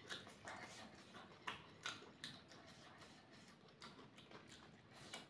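Faint, scattered small clicks and ticks of eating by hand: fingers picking fried rice and raw chili peppers off a wooden tray, with mouth sounds of eating.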